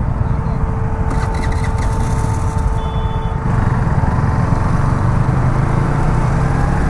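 Yamaha MT-15 motorcycle's single-cylinder engine running at low speed in busy town traffic, with a dense low rumble and a steady tone held until near the end. It gets louder about halfway through.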